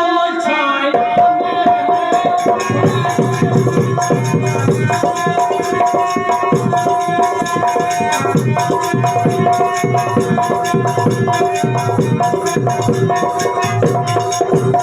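Instrumental stage music: hand drums playing a steady, busy rhythm under a held melodic tone that pauses briefly now and then.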